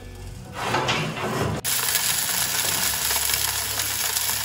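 Chicken roasting on a tray in a wood-burning stove's oven, sizzling with a steady hiss and light crackle. The sound starts suddenly about a second and a half in.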